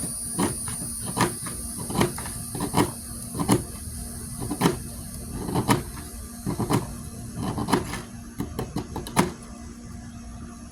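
Hand tool cutting and scraping into the hard clay packing of an aerial firework shell: irregular sharp scrapes and cracks, about one or two a second, thinning out near the end.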